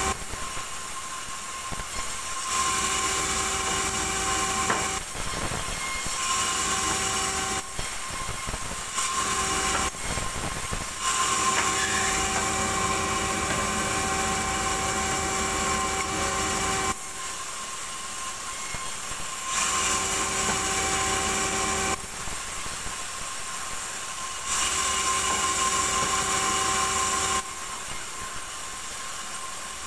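Large vertical band saw running with a steady hum, its blade ripping lengthwise through a small log. The sawing noise steps up and down every few seconds as the wood is fed through.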